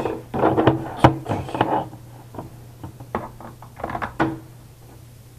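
Plastic action figures knocking and clattering on a tabletop, the sharpest knock about a second in, mixed with a boy's wordless play-fight vocal noises.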